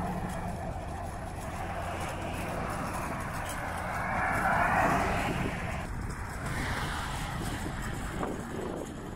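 A vehicle passing on the road: engine and tyre noise builds to a peak about four to five seconds in, then fades away.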